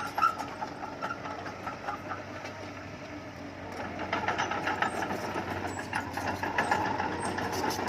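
Heavy diesel earthmoving engine running with a rapid, even chugging, getting louder about four seconds in as it works harder.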